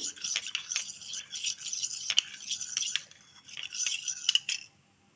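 A spoon stirring ginger juice and honey together, clinking and scraping against its container, in two spells with a short pause about three seconds in.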